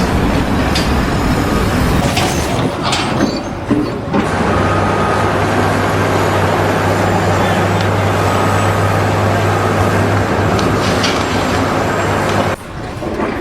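Heavy vehicle or machinery engine running steadily with a low hum. The sound changes abruptly about four seconds in and again near the end.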